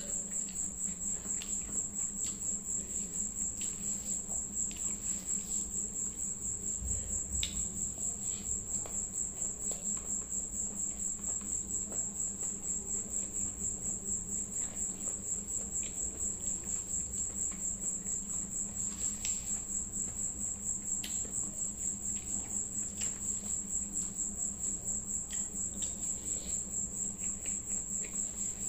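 A cricket chirping in a high, fast-pulsing trill that never lets up, over a low steady hum. Faint soft clicks come from fingers mixing rice on a plate and from chewing.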